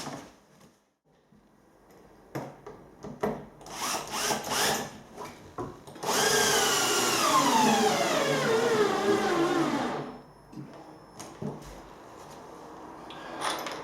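A few knocks, then a cordless drill's motor running for about four seconds with its pitch falling steadily as the battery runs flat.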